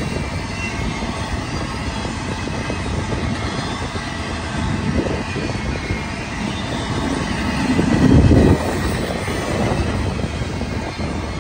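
Double-stack intermodal container train rolling past, steel wheels running over the rails with a steady rumble and faint high wheel squeal. About eight seconds in the rumble swells louder for a second and then cuts off suddenly.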